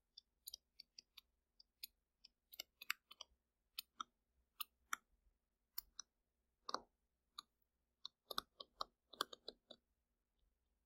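Stylus tapping and clicking on a tablet screen while handwriting: faint, irregular short taps, some bunched in quick clusters.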